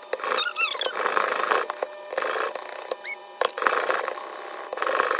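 Metal whisk beating gravy granules into hot water in a plastic measuring jug. It makes repeated bursts of scraping and swishing, with high squeaks of the wires rubbing on the plastic.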